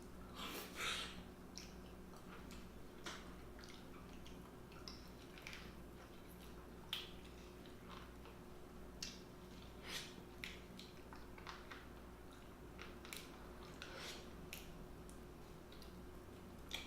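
Close-miked eating sounds of a seafood meal: quiet wet chewing with irregular short mouth clicks and smacks, the loudest about a second in, over a faint steady hum.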